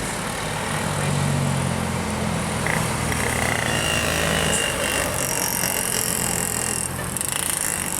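Tour bus engine running as the bus passes, its low note steady for the first four seconds or so and then fading. A higher hiss follows in the second half.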